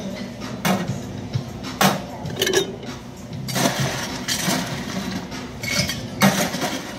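Glassware clinking and knocking on a stainless-steel bar counter as glasses are handled, with a sharp clatter near the end as a metal scoop of ice is tipped into a glass.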